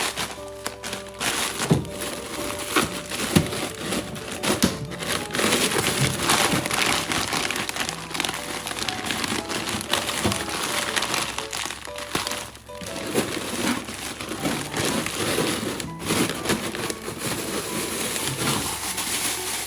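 Background music with a steady tune, over continuous crinkling and rustling, as of packaging being handled.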